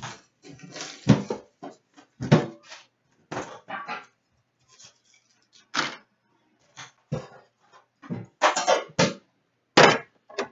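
Irregular bursts of plastic shrink-wrap and cardboard packaging rustling and crinkling as a trading-card tin is unwrapped and opened. Short knocks come from the metal tin and the card packs being set down on a glass counter.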